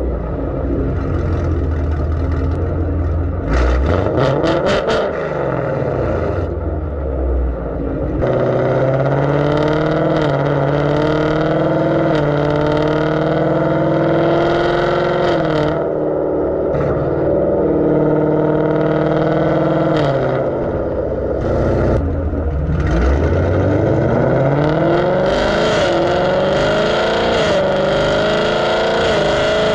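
Ford Mustang GT's 5.0 V8 with Kooks long-tube headers, a low exhaust rumble at first, then accelerating hard from about eight seconds in. The engine note climbs steadily and drops back several times at the upshifts.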